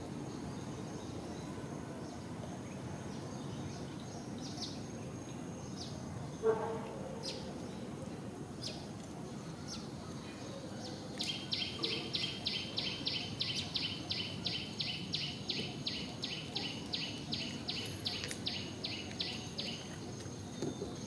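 Outdoor background noise with a rapid, evenly spaced run of high chirps from a small animal, about three to four a second. The chirps start about halfway through and last some eight seconds, with one short, sharper sound a few seconds before them.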